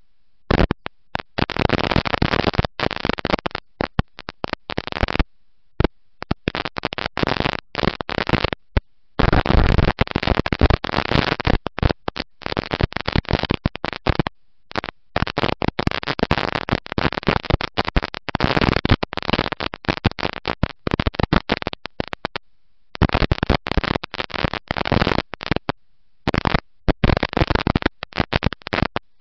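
Harsh, distorted rush of noise from a dirt-track race car at speed, picked up by an onboard camera microphone overwhelmed by engine and wind, with no clear engine note. The sound keeps cutting out abruptly to silence for moments at a time and coming back.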